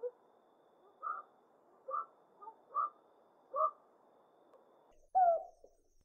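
Owl calling: a series of short, clear hoots, about one a second. Near the end comes one louder call that falls in pitch.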